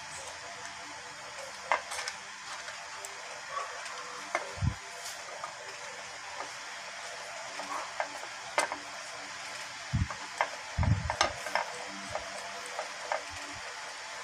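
Angle grinder gear housing and small metal parts handled by hand: scattered light metal clicks and a few dull knocks against the bench, with a small cluster about eleven seconds in. This is over a steady hiss.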